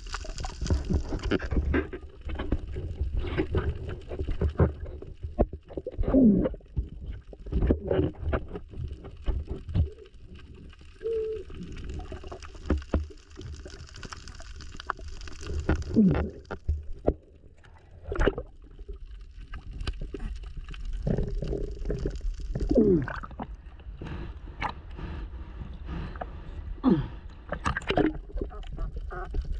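Underwater sound of a diver's exhaled air bubbling and gurgling in several short bursts, over a steady low rumble, with many clicks and knocks from handling.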